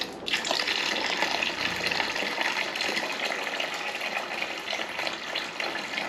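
Water poured from a plastic jug into a plastic bucket: a steady splashing stream that starts just after the beginning and keeps running.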